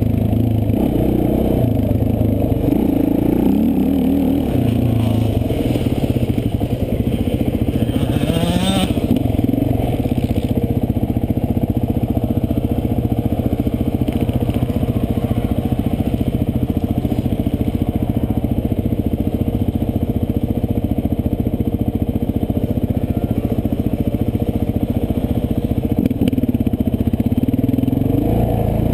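Quad bike engine running hard, heard close up from a camera mounted on the machine, its engine speed rising and falling as the rider works the throttle.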